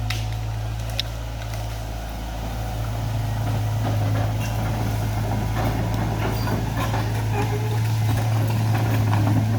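Diesel engine of a CAT excavator running with a steady low hum, getting louder from about two seconds in. There is a single sharp click about a second in.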